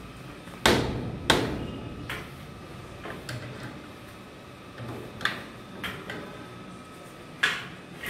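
A louvered air-conditioning grille being handled, giving sharp knocks and clacks, about seven in all, the two loudest about a second in, the rest spaced out and fainter.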